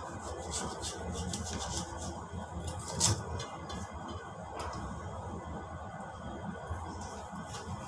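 Kitchen knife cutting a piece of pumpkin on a wooden cutting board: a run of small clicks and scrapes, with a sharper knock about three seconds in, over a low steady hum.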